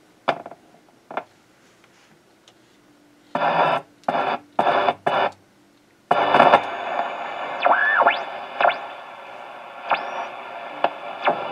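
RCA R35 tube radio sounding through its speaker: short bursts of static, then from about six seconds in a steady hiss with whistles gliding up and down in pitch. The squealing is in part from the tubes and coils lacking their shielding.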